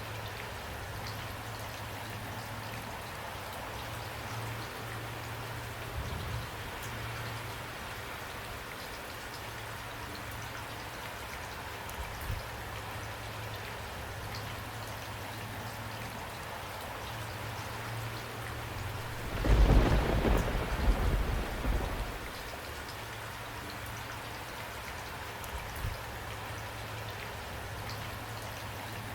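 Steady rain falling. About two-thirds of the way through, a loud low rumble of thunder lasts about two and a half seconds.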